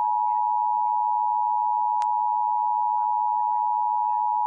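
Emergency Alert System attention signal: the steady two-tone alarm (853 and 960 Hz together) held at a constant loud level, announcing a statewide Required Monthly Test. A brief click sounds about two seconds in.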